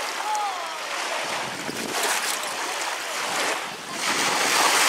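Choppy lake water sloshing in the shallows at the shore, with wind buffeting the microphone. The noise swells and fades every second or two.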